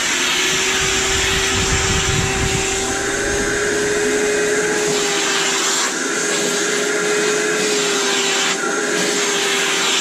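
Vacuum cleaner running steadily, a constant motor whine over rushing air, as its hose brush attachment is drawn along a yellow Labrador's coat.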